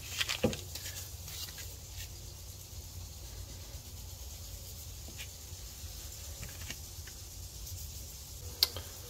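Faint scattered clicks and light scraping from a steering shaft being handled and packed with bearing grease by hand, over a steady low hum.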